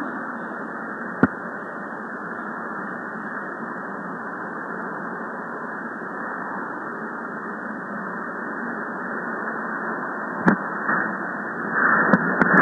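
Steady hiss of noise like radio static, with a sharp click about a second in and another near the end.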